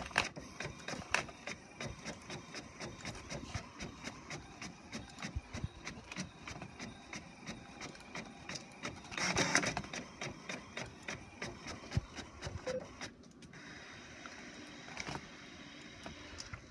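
HP Officejet 4500 all-in-one inkjet printer's mechanism running: fast, even clicking at about four a second, with a louder whirring swell about nine seconds in. The clicking stops about thirteen seconds in and leaves a steady whir.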